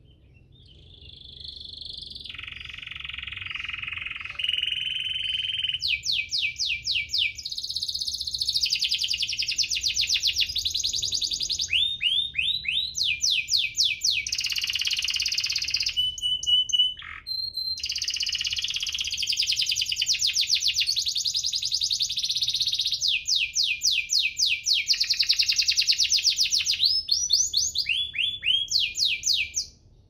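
Domestic canary singing a long song of fast rolling trills and repeated swooping chirps, with a brief break about two-thirds of the way through, stopping abruptly at the end.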